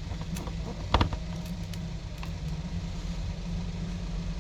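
A sharp click about a second in and a few fainter clicks from small tools and parts being handled while a smartphone is screwed back together, over a steady low hum.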